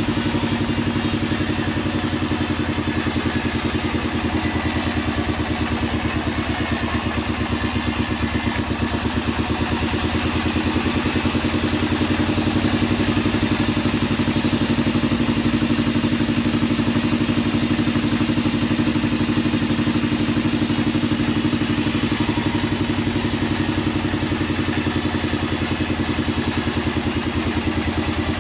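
Engine of a modified Bandsaw48 band sawmill running steadily at an even speed, with a fast regular pulse and a little clatter.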